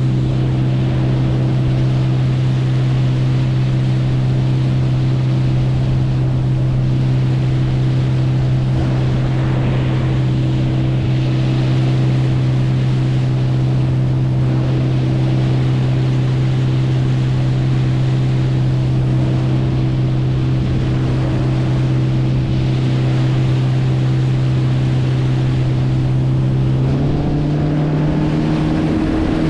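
Boat motor running at steady speed, a constant low drone over the hiss of water and wind. Near the end the engine note steps up as it speeds up.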